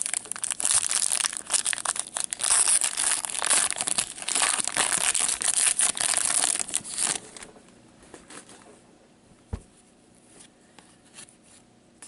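A hockey card pack's wrapper being torn open and crinkled by gloved hands: a dense crackling that stops about seven seconds in. Faint light clicks from the cards being handled follow, with one sharper tap.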